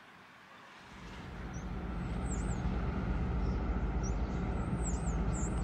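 Outdoor town ambience: a steady low rumble fades in about a second in, with small birds chirping several times in short high calls over it.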